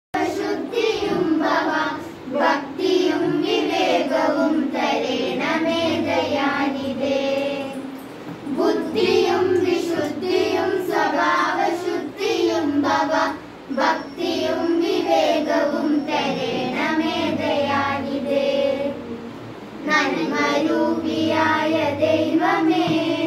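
A group of girls singing a prayer song together, in phrases with brief pauses between them.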